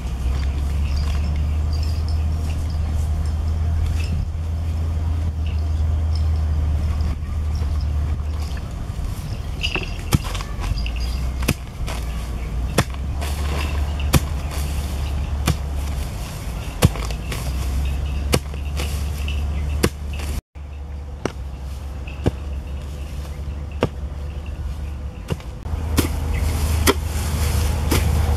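A steady low rumble, with sharp separate knocks from a wooden stick being driven into hard dirt to dig a hole; the knocks begin about a third of the way in.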